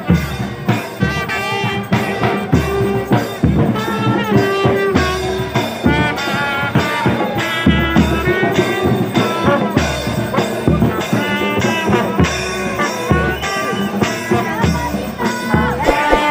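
Marching brass band playing a tune on sousaphone, trumpets and saxophones over a steady beat of bass drum and cymbals.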